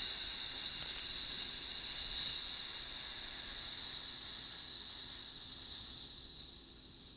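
Green River lime soda fizzing in a glass over ice just after the pour, a steady carbonation hiss that fades over the last two seconds as the foam settles.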